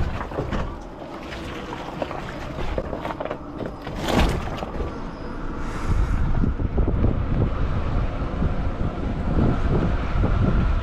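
Electric Rivian R1T pickup driving slowly over a rough dirt-and-rock trail: rumbling tyre and suspension noise with scattered knocks, a louder one about four seconds in, and wind buffeting the microphone.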